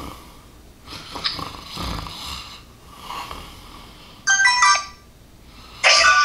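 A man snoring as if asleep: slow, noisy breaths about a second apart. Two short electronic app chimes of stepped tones sound about four and six seconds in, louder than the snores.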